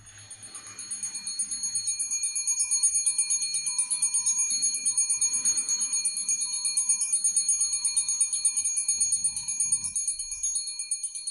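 Electric warning bell ringing rapidly and continuously, the signal that a train is about to arrive at the station. It builds up over the first second, then holds steady.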